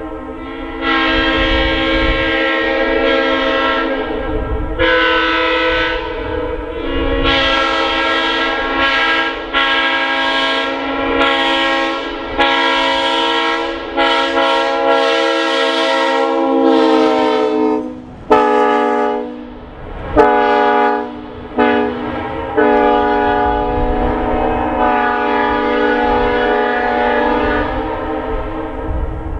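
Multi-chime locomotive air horn sounding a chord in long blasts separated by brief breaks, with a run of short blasts about two-thirds of the way through, then one more long blast that fades out near the end.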